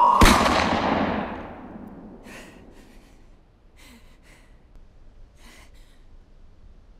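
A held scream is cut off by a single loud rifle shot about a quarter second in, its echo dying away over about two seconds. A woman's short, frightened gasping breaths follow, four or five of them.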